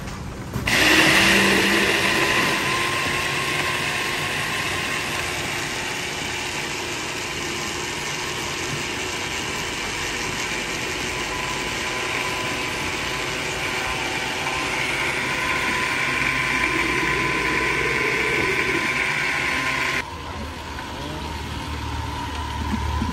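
A commercial Homelux blender crushing ice into a mango shake. It starts with a sudden loud surge, runs steadily for about twenty seconds, then cuts off abruptly.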